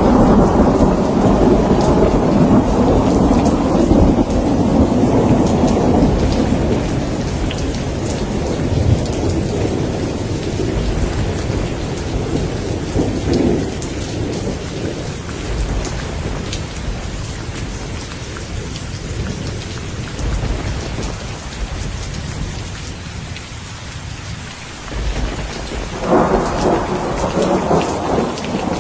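Steady rain with fine drop patter, under rolling thunder. A long low rumble fades away over the first half, a smaller roll swells briefly midway, and a fresh peal rolls in with a sudden rise near the end.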